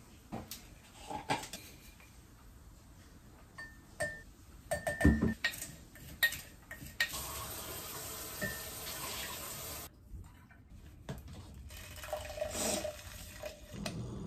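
A metal spoon clinks a few times against a glass mug and jars, with light knocks of items set down on the counter. Then a kitchen tap runs for about three seconds, stopping suddenly, followed by a few quieter knocks.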